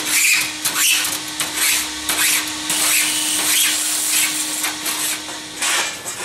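Hand file rasping along the freshly snipped edge of a sheet-metal sidecar body panel, deburring it in repeated strokes about once or twice a second. A faint steady hum runs underneath and stops near the end.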